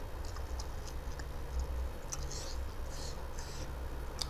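Close-miked eating sounds: wet chewing and mouth clicks, with the soft squish of fingers mixing rice and chicken curry, over a steady low hum.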